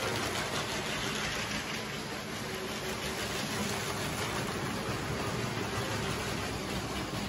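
Lego trains running on plastic track: a steady whir of their small electric motors and wheels.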